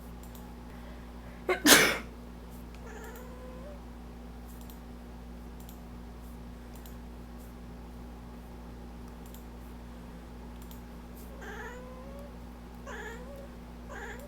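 A person sneezes loudly once, about two seconds in. A pet cat answers with a faint meow, then meows three more times near the end in short, rising calls.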